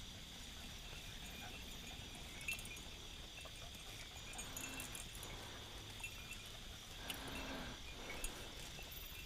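Crickets chirring faintly and steadily, with a few other faint short sounds now and then.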